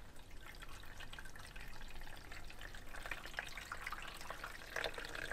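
Water pouring from a plastic watering can into the plastic water tank of a Norwood sawmill, a faint trickle and splash as the tank is topped off.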